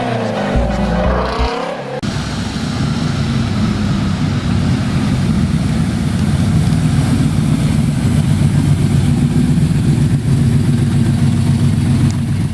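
A Ford Mustang V8 revs hard in a tyre-smoking burnout for the first two seconds. After a cut, a Shelby Cobra-style roadster's V8 runs steadily at low speed through its side-exit exhausts, a deep, even engine note.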